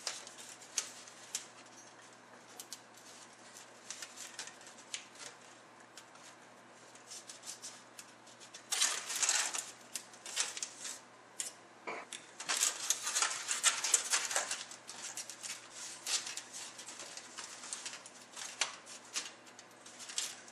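Aluminium foil crinkling and crackling as hands press and shape it over a laptop motherboard, in irregular bursts, loudest in two stretches past the middle.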